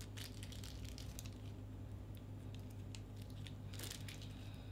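Small thin plastic bag filled with sauce being twisted and knotted shut by hand: faint, scattered crinkles, with a louder rustle near the end, over a steady low hum.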